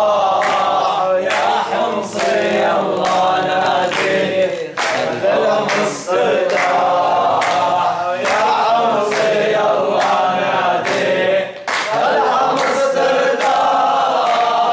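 A group of men singing an Arabic nasheed together, unaccompanied, keeping time with steady hand claps.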